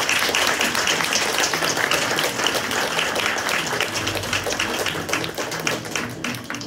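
Audience applauding: many hands clapping at once, thinning out toward the end.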